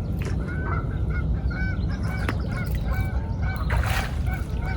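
Geese honking, a run of short repeated calls several a second, over a low steady rumble.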